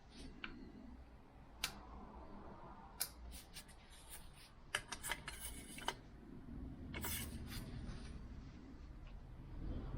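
Scattered light clicks and rattles of hand tools and small parts being handled, over a faint low hum. The clicks are busiest about five to six seconds in.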